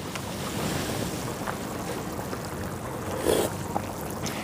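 Steady rushing, bubbling noise of pilaf zirvak boiling hard in a kazan over an open fire, with a short slurp about three seconds in as the broth is tasted from a wooden spoon.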